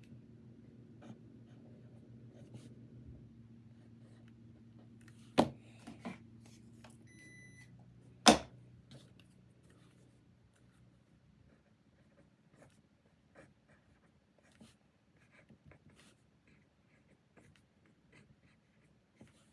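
Quiet desk-work sounds of doing homework: faint scratches and small ticks of writing and handling paper. Two sharp knocks come about five and eight seconds in, with a short electronic beep between them. A low steady hum stops partway through.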